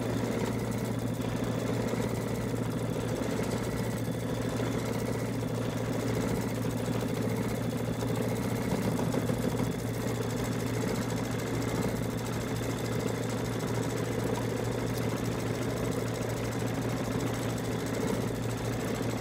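Embroidery machine stitching steadily, a continuous even run of rapid stitches over a low drone.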